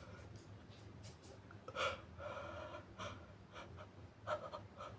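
A person's quiet, catching gasps and sniffs through a runny nose, a sneeze building but not yet coming out. There is a short sharp intake about two seconds in, a longer breathy gasp after it, and two more quick sniffs near the end.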